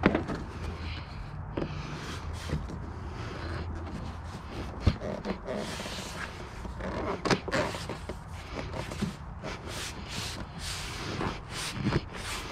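Hands working the seat and plastic side cover of a motorcycle into place, making irregular rubbing and scuffing with scattered clicks and knocks. The sharpest knocks come just after the start, at about five seconds and at about seven seconds.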